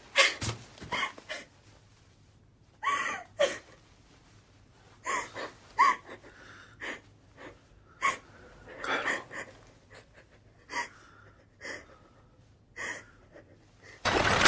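Gasps and heavy, strained breaths in short separate bursts, a second or so apart. About half a second before the end a loud steady noise begins.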